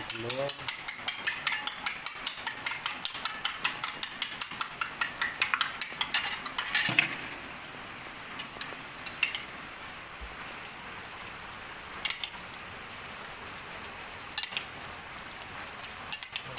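Metal spoon beating eggs in a glass bowl, clinking against the glass about four times a second. The beating stops about seven seconds in, leaving a steady sizzling hiss from crabs cooking in the wok, with a few single clinks of the spoon on the bowl.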